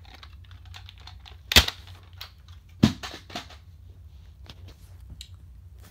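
Scattered light clicks and handling knocks, with two louder sharp knocks a little over a second apart, over a steady low hum.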